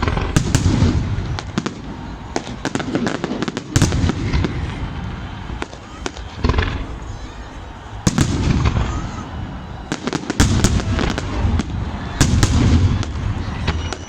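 Fireworks display: repeated volleys of sharp bangs and crackles every couple of seconds, each followed by a low rumble.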